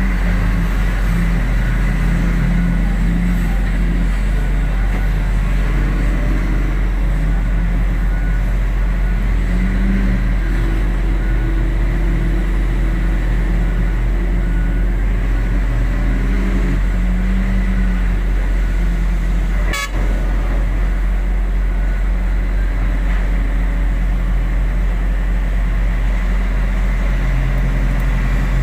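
Heavy diesel engines of an excavator and dump truck running and working, the engine note rising and falling over several seconds. A sharp click with a brief drop in sound comes about two-thirds of the way through.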